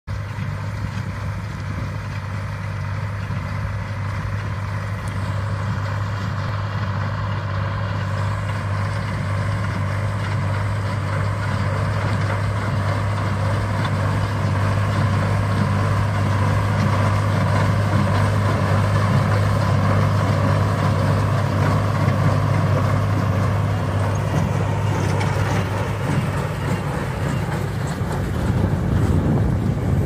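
Tractor's diesel engine running steadily under load as it pulls and drives a small baler, with a constant low hum that grows louder as the machine comes closer.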